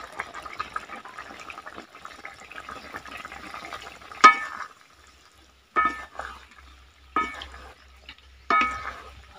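Ridge-gourd and potato curry bubbling in a wok as poppy-seed paste is scraped in and stirred, a crackly simmer. About four seconds in it gives way to four sharp knocks of a utensil against the wok, each with a short metallic ring, roughly one and a half seconds apart.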